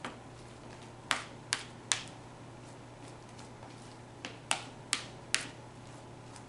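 A utensil knocking against the mixing bowl while stirring slime made of shaving cream, glue and foaming hand soap: sharp clicks in two runs of three or four, about two or three a second.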